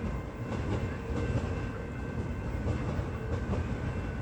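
Melbourne suburban electric train running away over the crossover onto the main line: a steady rumble of wheels on rail, with faint steady high tones above it.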